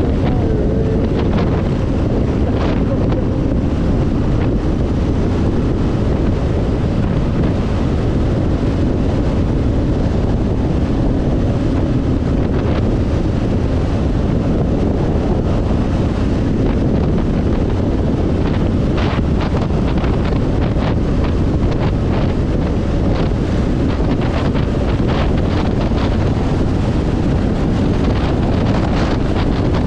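Steady wind rushing over the microphone of a motorcycle riding at road speed, with the bike's running noise underneath and brief sharper buffets here and there.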